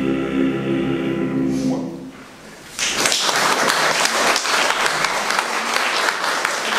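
Male a cappella choir holding the final chord of a Russian song, cutting off about a second and a half in and ringing away briefly in the church. Audience applause starts near three seconds in and goes on steadily.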